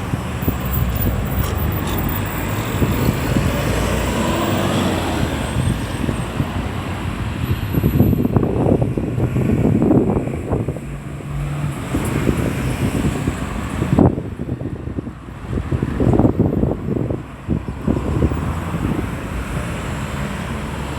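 Road traffic: car engines and tyre noise running steadily, with one engine rising in pitch as it accelerates a few seconds in, and a single sharp knock about two-thirds of the way through.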